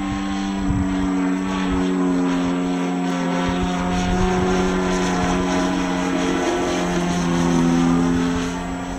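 Radio-control model Extreme Flight Edge 540T's motor and propeller droning steadily overhead at one even pitch, which shifts slightly about two-thirds of the way through.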